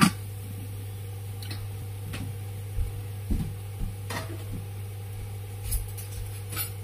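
A covered pan of clams cooking: a steady low hum with scattered faint ticks and small knocks from under the domed stainless-steel lid. A sharp metal clink at the very start as the lid is set down on the pan.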